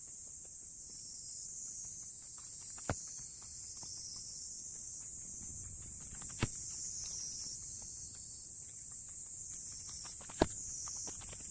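Three sharp, single knocks a few seconds apart, typical of split firewood logs being set down on a woodpile, over a steady high hiss.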